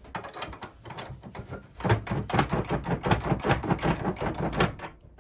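Cast-iron shaker grates in the bottom of a wood stove being wiggled back and forth, rattling with rapid metallic clacks about five or six a second that get louder about two seconds in; this shakes the ashes down into the ash pan.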